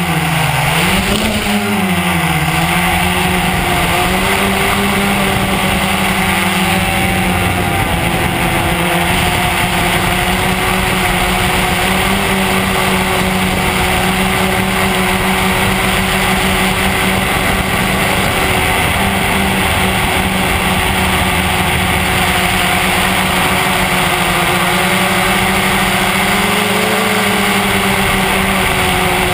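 Electric motors and propellers of an FPV quadcopter, picked up by its onboard camera. The pitch swings up and down as the quad lifts off in the first couple of seconds. It then settles into a steady buzzing drone in flight, wavering slightly as the throttle changes.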